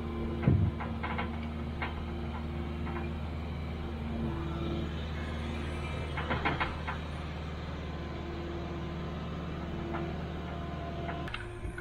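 New Holland skid steer's diesel engine running steadily under load as it pushes a Broderson crane through mud, with a few metal knocks and clanks, the loudest about half a second in.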